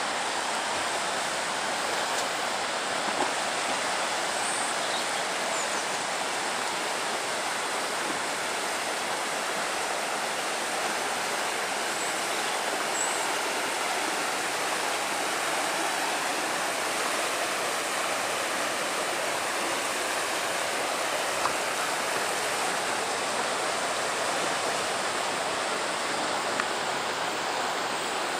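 Fast river water rushing over rocky rapids, a steady unbroken noise.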